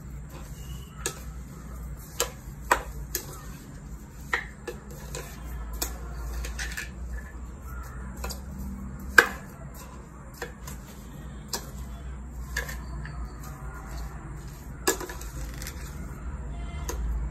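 Plastic spoon knocking and scraping against a plastic bowl as chopped fruit salad is stirred: irregular sharp clicks, the loudest about nine seconds in, over a low steady hum.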